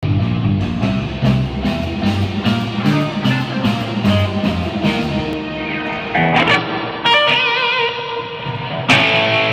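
Guitar being played: evenly picked or strummed chords for about six seconds, then held notes with a wavering vibrato, and one sharp struck chord near the end.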